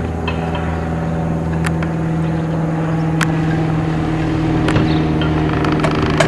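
An engine running steadily at one even pitch, with a sharp knock about every second and a half.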